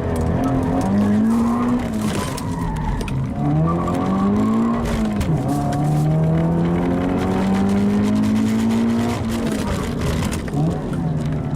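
Toyota 86 / Subaru BRZ flat-four engine under hard acceleration, its pitch climbing through the revs and dropping back at each gear change several times, with one long climb through the middle.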